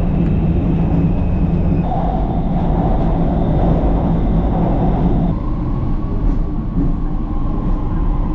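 Shanghai Metro Line 11 train heard from inside the carriage, running on the elevated track: a steady rumble of wheels on rail with a motor whine over it, whose tone changes about five seconds in.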